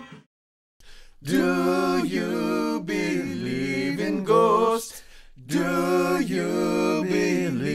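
Unaccompanied a cappella singing in two similar phrases, starting about a second in after the music cuts off into a brief silence.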